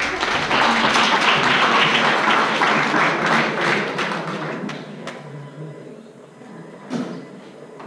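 Audience applause, a dense patter of clapping hands that dies away about five seconds in. A single sharp knock near the end.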